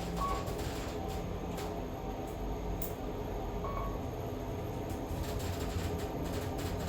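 Kone EcoDisc machine-room-less traction elevator cab travelling between floors: a quiet, steady low hum and rumble of the ride, with two brief faint tones, one near the start and one about halfway.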